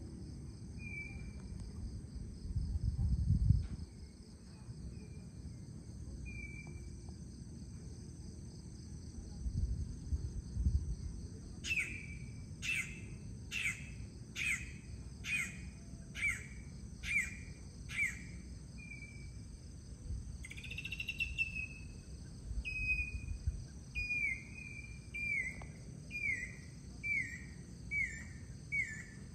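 Crickets and other insects trilling steadily, with a bird calling runs of short, sharp, down-slurred notes: about eight evenly spaced notes starting about twelve seconds in, one longer call a little later, then a quicker run of about ten near the end. A low rumble about three seconds in is the loudest moment.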